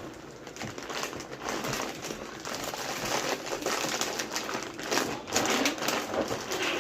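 Handling noise: irregular clicks and rustling.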